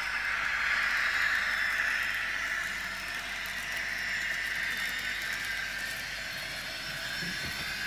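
Kato N-scale VT 18.16 diesel multiple unit model running over a left-right turnout combination: a steady high-pitched whir of its small motor and wheels on the track, a little louder about a second in and easing slightly afterwards.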